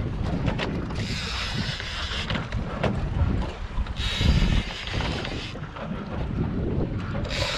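Wind buffeting the microphone on an offshore fishing boat, over a steady low rumble, with three long bursts of hiss about three seconds apart.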